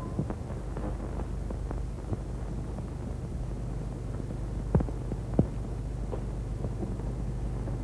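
Steady low hum and hiss of an old film soundtrack, with scattered faint clicks and two sharper ticks about five seconds in.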